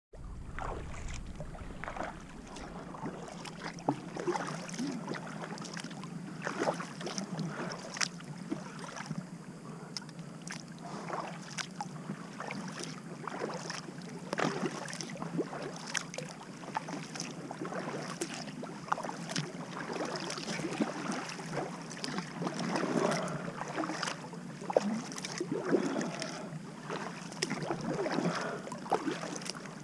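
Kayak being paddled over calm water: the paddle blades dip and splash in irregular strokes, with water rippling along the hull.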